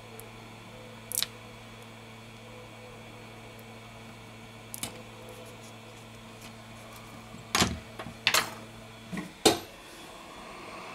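Plastic phone display frames and tweezers being handled on a rubber work mat: a few sharp clicks and knocks, the loudest in a cluster between about seven and nine and a half seconds in, over a steady low hum that stops about nine seconds in. Near the end a hot air gun starts blowing with a soft rising hiss.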